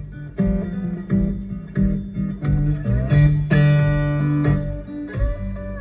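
Blues song's instrumental break, plucked acoustic guitar notes over a strong bass line with no vocals, played back through the pickup's car audio system.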